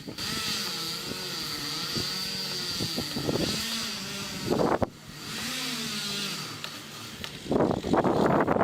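A chainsaw running steadily as it makes the back cut through a tree trunk, its engine pitch wavering under load. It briefly drops out about five seconds in, then runs on, growing louder and rougher near the end.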